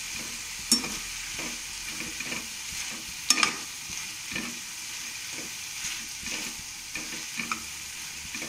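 Chopped ivy gourd, onion and tomato sizzling in oil in a kadai while a metal spatula stirs them, scraping through in repeated strokes. Two sharp knocks of the spatula on the pan come about a second in and a little past three seconds.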